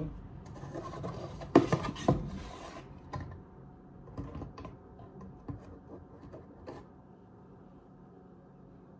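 Handling sounds of flour being measured: a plastic measuring cup scraping and tapping in a plastic tub of flour, with two sharper knocks about one and a half and two seconds in, then lighter taps that die away.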